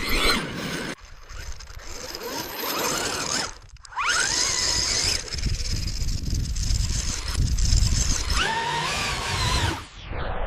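Electric RC car motor whining under throttle, with rough running noise, in short segments that cut off abruptly. The whine rises in pitch about four seconds in and again near the end.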